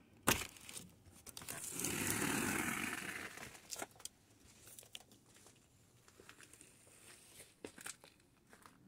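Plastic sheeting crinkling and rustling as it is brushed against, loudest for about a second and a half around two seconds in. A sharp click comes just after the start, and faint scattered ticks follow the rustle.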